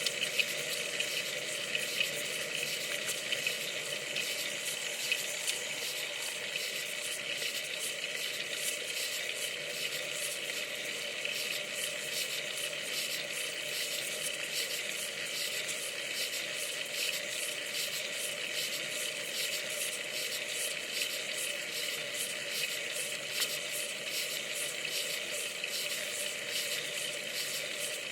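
Steady hiss of wind and road noise picked up by a bicycle-mounted camera while riding, with faint crackling throughout.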